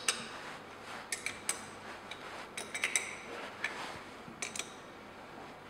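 A spanner clinking on the milling machine vice's side screws as they are locked down in half turns: scattered sharp metallic clicks and taps, some ringing briefly.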